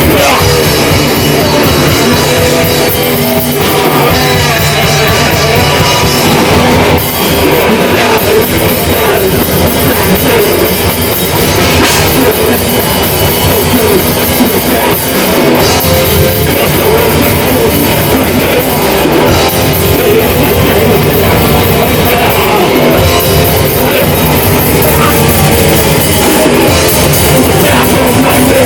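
Death metal band playing live: loud, dense distorted guitars over a drum kit, continuing without a break.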